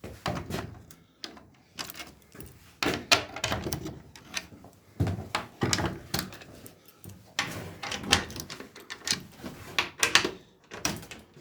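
Irregular knocks and clunks, about twenty of them, spaced unevenly: wooden doors, hatches or fittings being handled and bumped.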